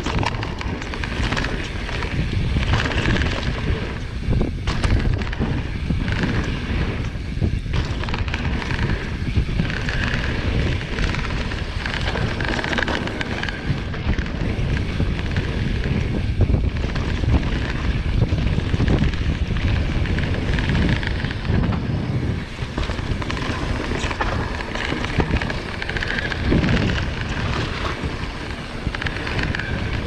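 Wind rushing over the microphone and a Marin Alpine Trail XR mountain bike's tyres rolling fast over a rough dirt trail, with occasional knocks and clatter as it hits bumps.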